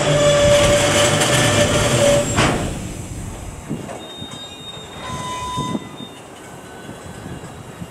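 Empty container flat wagons of a freight train rolling past on the rails, with a steady high wheel squeal for about the first two seconds. The squeal then stops and the rolling noise falls to a quieter rumble with a few light clunks and faint squeals.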